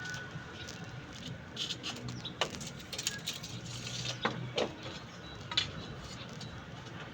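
Irregular light clicks and taps of small hard objects being handled, with a few sharper knocks: one about two and a half seconds in, two close together around four and a half seconds, and one more near five and a half seconds.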